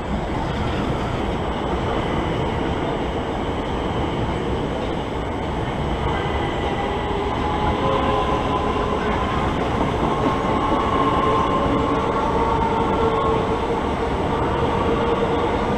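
Southeastern Class 376 electric multiple unit moving past along the platform: a steady rumble of wheels on the rails. A few steady whining tones join in about halfway, and the sound grows slightly louder.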